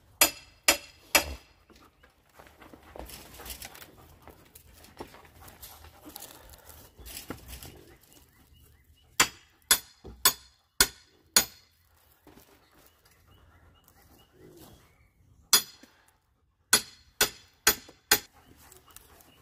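Hammer blows driving nails into wood, about two strikes a second in three runs: three near the start, five in the middle, and five more near the end.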